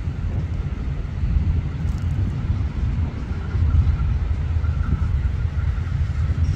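Two diesel-electric locomotives running with a steady, deep engine rumble as they haul a passenger train slowly past, with a faint thin whine above it.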